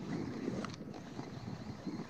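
Wind buffeting the microphone on open water, a rough, uneven rumble, with a brief click about two-thirds of a second in.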